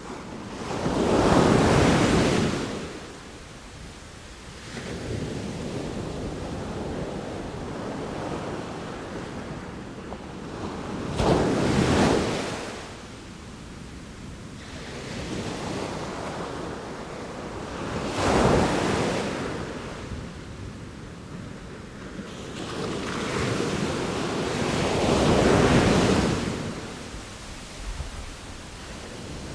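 Ocean waves breaking, four crashes several seconds apart with a steady wash of surf between them.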